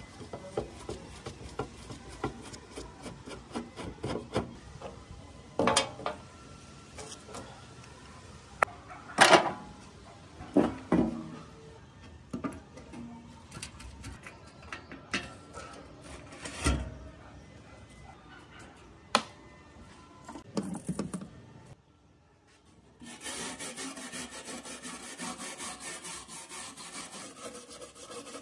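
Screws being worked loose and pulled from a rusty steel fog-machine casing: scattered metal clinks, scrapes and a few sharp knocks. After a brief pause near the end, a wire brush scrubs the rusty sheet metal in steady, rapid back-and-forth strokes.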